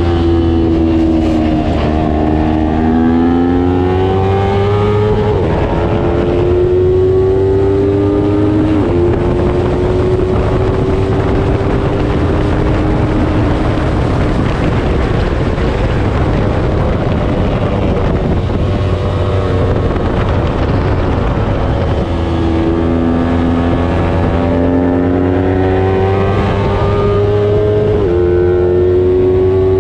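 300-class racing motorcycle engine revving hard up through the gears, its pitch climbing and dropping sharply at each upshift, with falling pitch when it slows for corners. A stretch of rushing noise midway nearly covers the engine tone.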